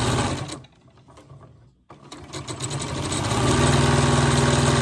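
Electric sewing machine stitching a seam through strips of fabric, running fast, stopping about half a second in, then starting again and speeding up to a steady rapid stitching.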